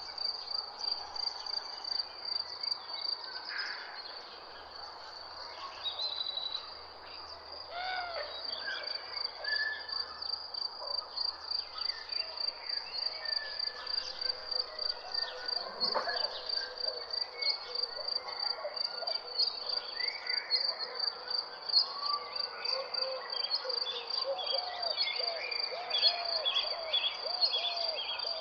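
Crickets chirping in a steady, fast pulse, with various birds calling over them. Near the end one bird repeats a short, arched call about twice a second.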